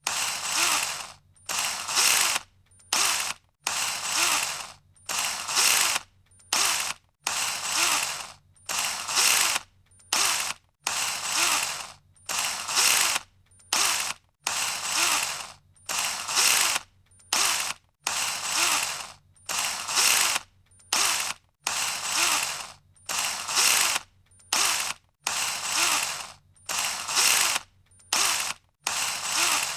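18-volt cordless drill run in repeated short bursts on the trigger, a high-pitched whir starting and stopping about once a second, a longer burst alternating with a shorter one.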